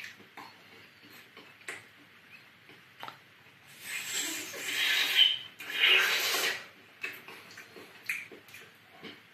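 A person making two loud, hissing slurping and gobbling mouth noises, each about a second long, as if wolfing down food. Faint small clicks and rustles come before and after them.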